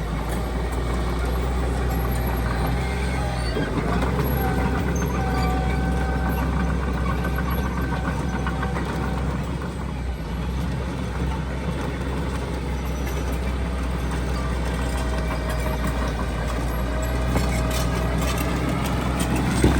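Heavy diesel earthmoving machinery running steadily, its engine pitch drifting slightly.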